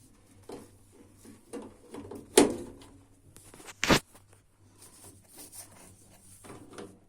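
A series of knocks and clunks from parts being handled: a few light knocks, then a loud clunk about two and a half seconds in and another sharp knock about a second later.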